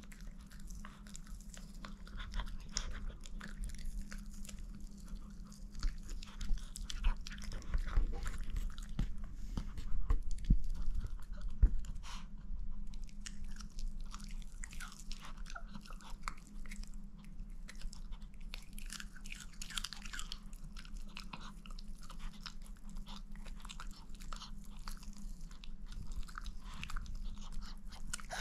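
A chihuahua chewing and crunching on a piece of cooked chicken held out by hand: a steady run of small bites and crunches, busiest and loudest in the middle stretch.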